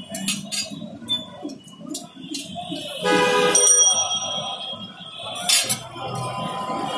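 A metal spatula clinking and scraping against a large steel frying pan as kababs fry in shallow oil, in short irregular strikes. About three seconds in, a louder ringing tone sounds for about a second.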